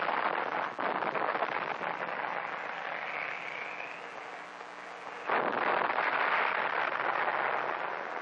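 Dense crackling noise from an old film soundtrack, fading somewhat through the middle and jumping abruptly louder about five seconds in.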